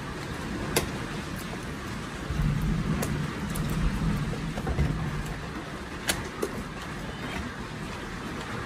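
Hollow plastic toy stove being handled and tipped on its side on a tabletop: low rubbing and bumping with a few sharp plastic clicks. Near the end, clear plastic protective film rustles as it is lifted off the stovetop.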